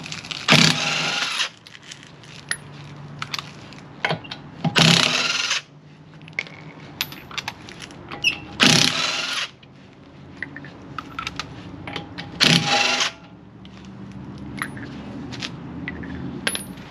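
Cordless Makita impact wrench hammering the lug nuts off a car wheel: four bursts of about a second each, one per lug nut, about four seconds apart. Small metallic clinks of the nuts and socket come between the bursts.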